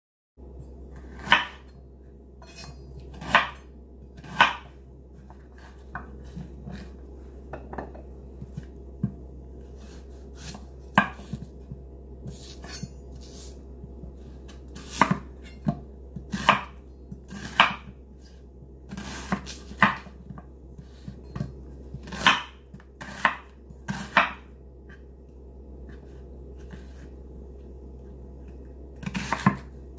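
Kitchen knife cutting an onion on a bamboo cutting board: sharp single knocks of the blade hitting the wood, irregularly spaced a second or several apart, sometimes in quick pairs, over a steady low hum.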